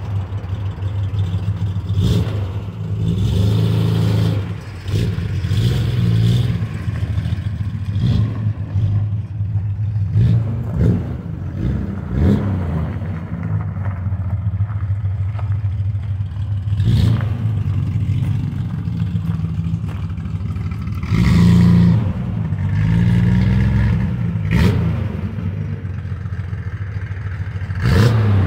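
1968 Triumph GT6 Mk1's straight-six engine running through a newly fitted Bell stainless steel exhaust, idling and revved up and back down several times.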